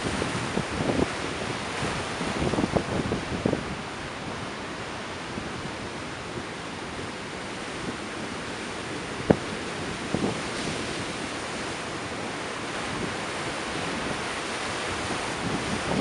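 Rough ocean surf breaking and rolling, a steady wash of noise, with wind buffeting the microphone in gusts during the first few seconds and again near the end. There is one brief sharp click about nine seconds in.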